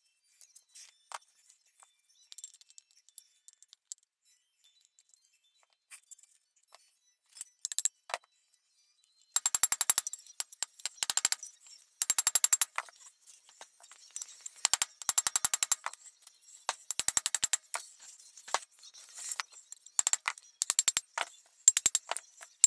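Socket ratchet clicking in quick runs of about a second each, over and over from about nine seconds in, as a fastener on the cast-iron vise body is run down. Light scattered metal clicks and taps come before.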